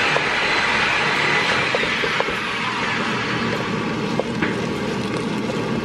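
Diced ham and melting cream cheese sizzling in a frying pan, a steady hiss, while a wooden spoon stirs and scrapes through them with a few light taps.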